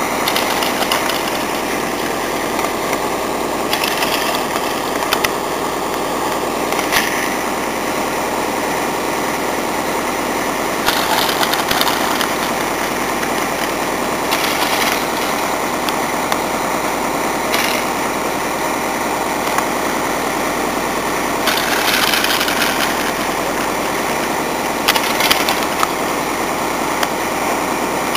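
Ski drag lift running: a steady mechanical hum from the haul cable travelling over the tower's sheave wheels and the drive, with a brief louder rush every few seconds as the hangers pass.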